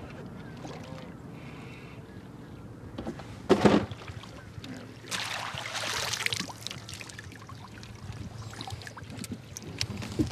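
A smallmouth bass being netted: a brief loud splash about three and a half seconds in, then water pouring out of a rubber-mesh landing net as it is lifted clear of the lake.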